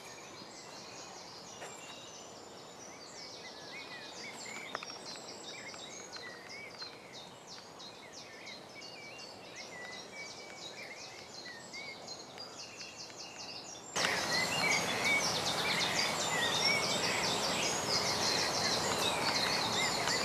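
Many small birds singing in a dawn chorus: overlapping chirps, whistles and short trills over a steady outdoor hiss. It grows louder and busier about two-thirds of the way through.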